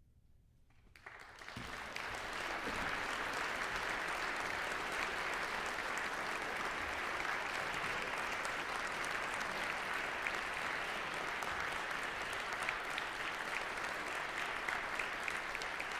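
A moment of near silence, then an audience starts applauding about a second in and keeps clapping steadily.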